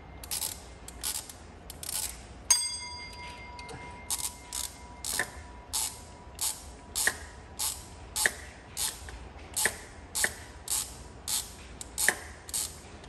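Hand ratchet clicking in steady strokes, a little under two a second, running water pump bolts in on a GM 5.3 V8. About 2.5 s in, a sharp metallic clink rings briefly.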